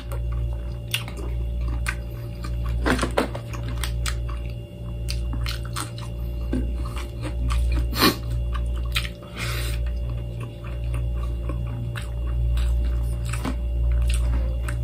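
Close-up eating sounds of a man chewing balut and rice: mouth chewing with small wet clicks and squishes as his fingers pick at the soft egg and tear chicken. A steady low hum runs underneath.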